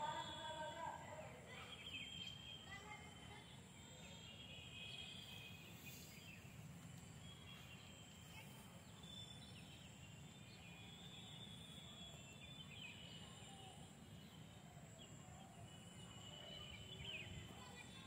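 Faint outdoor ambience: distant birds chirping now and then, short high calls scattered through, over a steady faint high tone and low background rumble.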